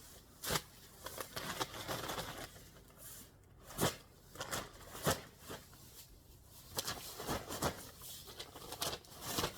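Paper yard waste bags full of leaves crinkling and rustling as they are handled, in irregular sharp crackles.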